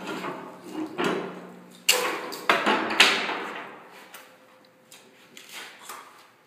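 Sharp metal clanks and bangs, four of them over about two seconds, as a steel pry bar forces a steel outward-swinging door on a forcible-entry prop and the door gives way. Fainter clatter follows.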